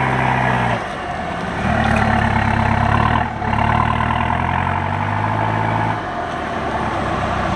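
Off-road 4x4 engine held at steady revs under load as it churns through deep mud ruts. The throttle eases off briefly about a second in, again a little before midway, and about six seconds in.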